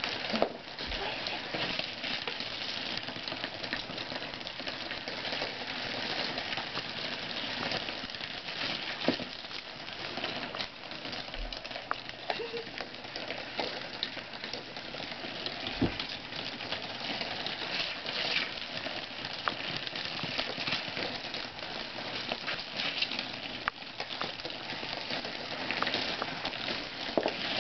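Kitten pawing and brushing against a paper roller coaster and the cardboard beneath it: a steady crackly rustle with scattered light taps and clicks.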